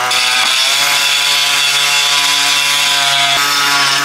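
Handheld rotary tool running at full speed while cutting into a carbon-fibre rear diffuser: a loud, steady high-pitched whine with a gritty cutting hiss.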